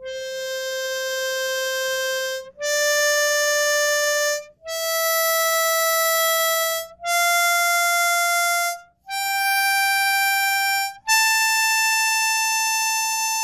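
Diatonic harmonica in C playing six single notes up the C major scale, C, D, E, F, G, A, alternating blow and draw on holes 4 to 6, each held about two seconds with a short break between notes.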